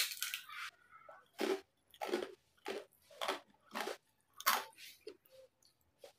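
A person chewing a mouthful of crispy pata (deep-fried pork leg) and rice close to the microphone: a loud bite at the start, then a steady run of crunchy chews a little under two a second, dying away near the end.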